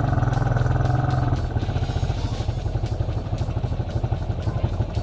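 Honda Big Red's engine running at low speed as the machine rolls over leaf-covered ground, with a steady drone for the first second and a half, then a rougher, pulsing note.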